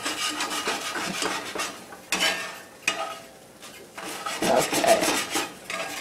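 A spatula scraping and stirring scrambled eggs around a cast-iron skillet, in short repeated strokes over a light sizzle of hot oil. The loudest stretch comes about two thirds of the way through.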